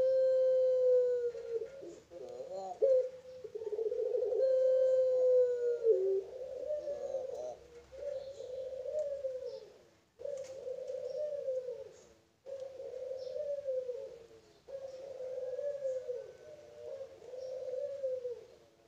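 A young puter pelung, a domestic ringneck dove of the long-cooing pelung strain, cooing. It gives two long drawn-out coos in the first six seconds, then a run of shorter coos that waver in pitch, each about a second long with brief pauses.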